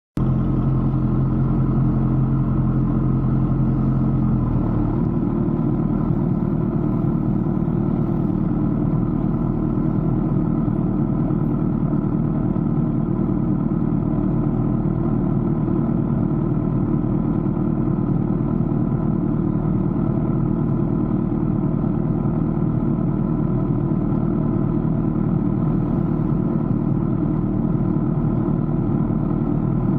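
A motor vehicle's engine running steadily, heard during a ride, a continuous hum with several steady tones; the low part of the hum shifts about four and a half seconds in.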